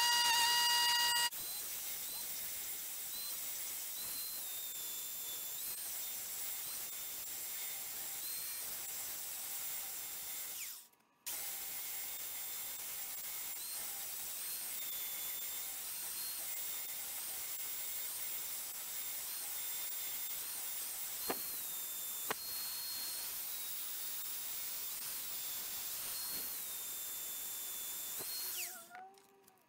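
Small high-speed power tool running steadily, its high whine shifting up and down in pitch now and then, with a short break about eleven seconds in.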